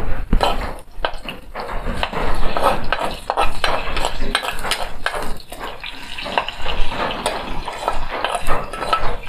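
Chopped onion sizzling as it fries in hot oil in a small black metal pan. A plastic spoon keeps stirring it, scraping and clicking against the pan over and over.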